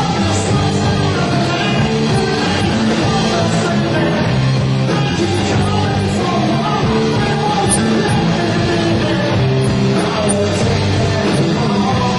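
Rock band playing live: electric guitars and a drum kit with cymbals.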